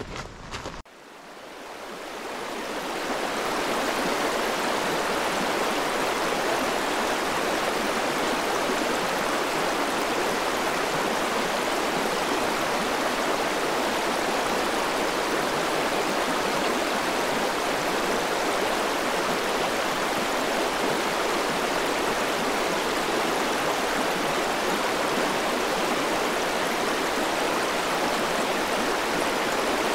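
Mountain stream rushing over boulders and small cascades: a steady rush of water that fades in over the first few seconds and then holds even.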